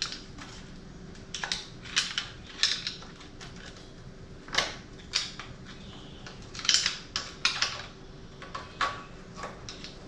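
Irregular metallic clinks and rattles of a motorcycle drive chain being worked off its front sprocket by hand, some clinks sharper than others.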